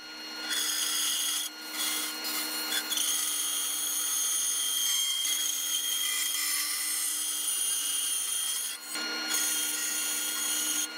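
Bandsaw running and cutting through a thick walnut blank, a steady machine sound with the blade rasping through the wood. This is the rough cutting of a rifle stock blank.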